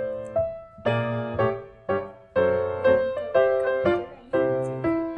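Background piano music: a gentle melody of notes struck about twice a second, each fading away.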